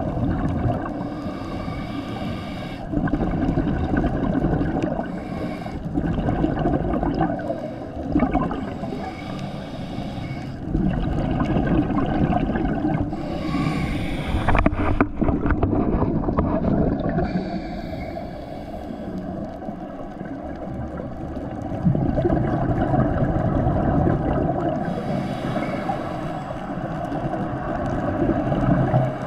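Underwater sound of a scuba diver's regulator breathing: bursts of exhaled bubbles recurring every several seconds over a low steady rumble.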